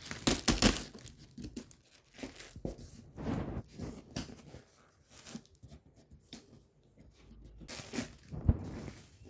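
Yellow packing tape being torn off a cardboard carton and the cardboard flaps pulled open, in irregular ripping and crinkling bursts, loudest just after the start and again near the end.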